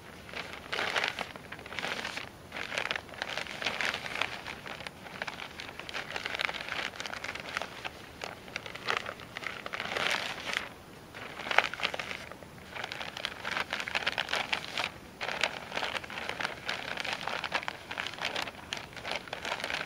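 Newspaper rustling and crinkling in irregular bursts as a sheet is folded over and over into a thin strip for a fire lighter, with one sharper crackle about halfway through.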